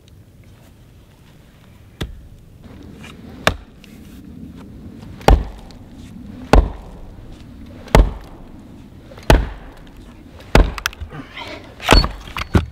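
Hatchet chopping firewood: about eight sharp, loud blade strikes into a log, a little over a second apart, starting about two seconds in.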